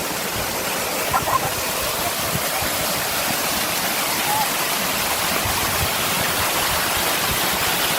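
Waterfall pouring steadily, a constant broad rush of falling water that grows slightly louder.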